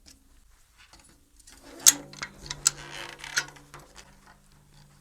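Metal drum hardware clicking and knocking as a tom drum is hung on its bolts and mount, a quick run of small sharp clicks starting about a second and a half in, with a low steady tone underneath.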